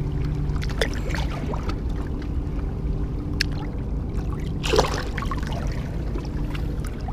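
Bay water lapping and sloshing against shoreline rocks under a steady low rumble, with a short splash about five seconds in as a released fish swims off from the hand.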